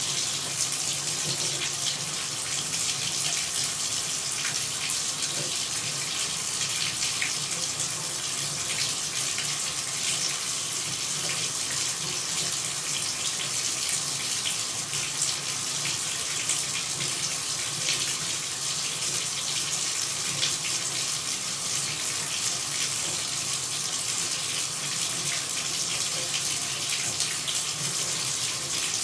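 Running water pouring steadily: an even, unbroken hiss that is brightest in the treble, with a faint low rush underneath.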